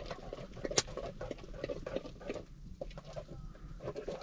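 A wooden stick stirring and beating thick food in a pot, making irregular knocks and soft plops, with a wood fire crackling.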